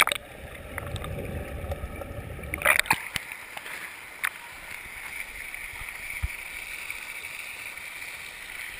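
Muffled low rumble of pool water heard underwater for about two and a half seconds, ended by a loud splash as the microphone breaks the surface. After that comes the steady splashing hiss of water pouring from the pool's stone fountains, with a few small splashes.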